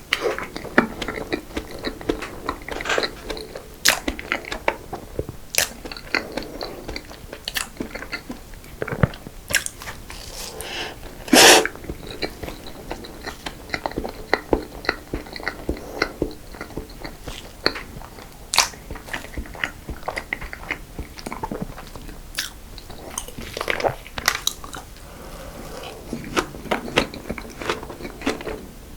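Close-miked eating of cream-filled desserts: repeated bites and chewing with sharp, crisp crunches, and one longer, louder crunch about 11 seconds in.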